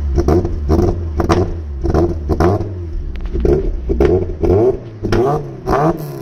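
Mazda MX-5 engine revved in quick repeated blips, about two a second, through an old aftermarket exhaust back box. It is running badly, "running like ass", with smoke pouring from the exhaust.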